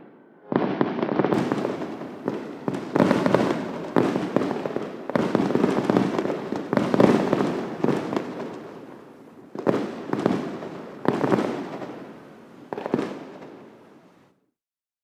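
Aerial fireworks shells bursting overhead in quick succession, about a dozen bangs, each trailing off in a rumbling decay. The bursts fade out shortly before the end.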